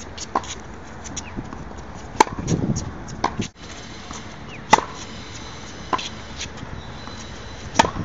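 Tennis ball struck with a racket during a baseline rally on a hard court: three loud, sharp hits about two and a half seconds apart, with fainter hits and bounces from the far side between them.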